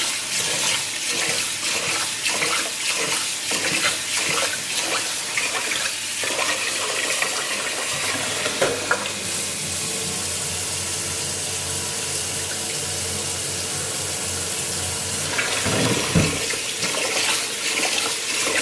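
Kitchen tap running into a stainless steel pot of rice in the sink while a hand swishes and stirs the grains, washing the starch off. The splashing comes and goes over the steady stream of water, steadier for a few seconds in the middle.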